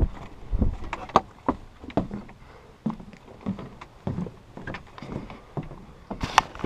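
Irregular light knocks and footsteps of a person stepping through a wooden doorway into a felt ger and moving about inside, out of the wind.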